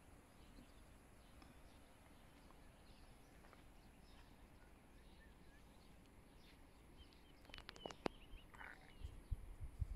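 Quiet open-air ambience with faint, scattered bird chirps, growing busier with a few sharp clicks about seven and a half seconds in. Low thumps come in near the end.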